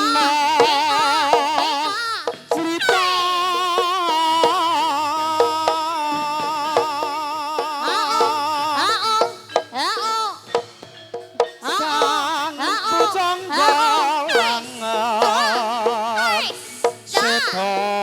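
Dance accompaniment music: a held, wavering melody line with strong vibrato over percussion strokes.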